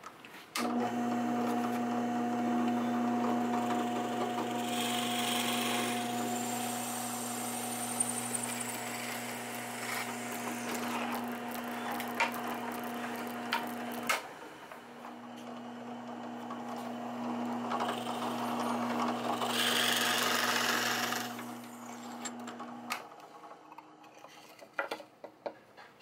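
Benchtop drill press motor running with a steady hum, breaking off about halfway and starting again a second later, then stopping near the end. Twice the twist bit is fed down and cuts through birch plywood, each time a harsher hiss over the hum lasting about a second and a half, with a few light clicks of handling.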